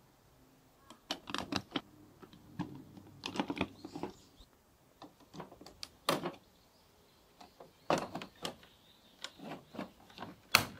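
Plastic Plarail toy track pieces and parts clicking and clacking as they are handled, in irregular sharp knocks with small clusters; the loudest knocks come about six seconds in and just before the end.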